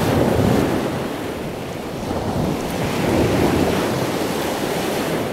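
Sea water washing, a steady rush of waves that swells and eases.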